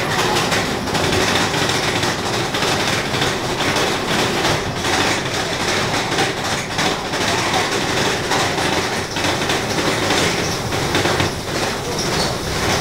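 Big Thunder Mountain mine-train roller coaster running along its track, heard from aboard the train: a steady, loud clatter and rumble of the cars on the rails.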